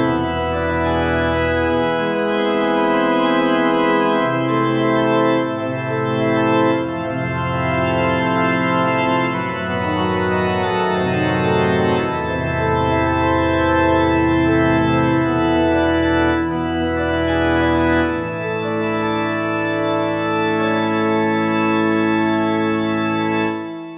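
Organ music: held chords over a bass line that steps to a new note every second or two, fading out just before the end.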